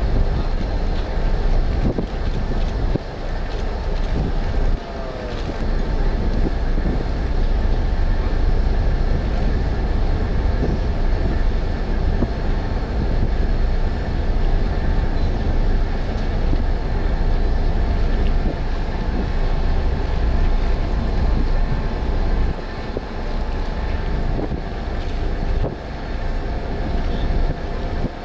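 Steady low rumble of a ship's engines while the ship is under way, mixed with wind buffeting the microphone, and a faint machinery hum over it.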